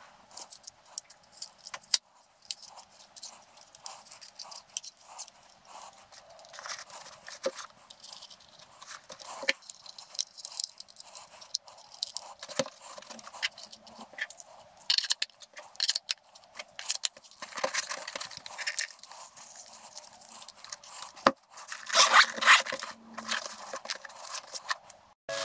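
Handling noise of a DJI Mavic Mini drone and its remote controller being packed into their grey hard-shell carrying case: irregular plastic clicks, taps and scrapes, busier in the second half.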